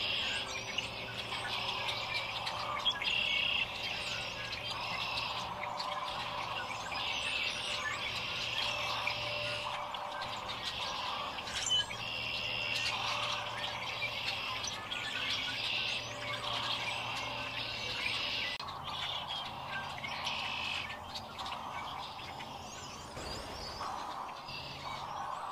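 A large flock of sandhill cranes calling together, many overlapping calls forming a continuous chorus.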